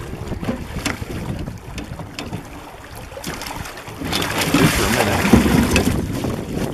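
Steelhead splashing in a landing net at the side of a drift boat, louder for about two seconds from four seconds in, over moving river water and wind on the microphone, with a few light knocks earlier.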